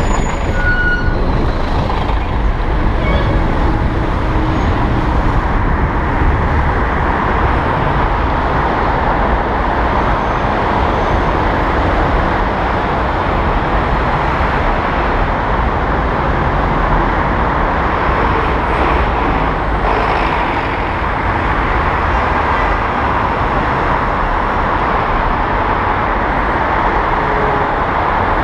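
Steady, loud rush of wind and road noise from riding an electric bicycle in traffic.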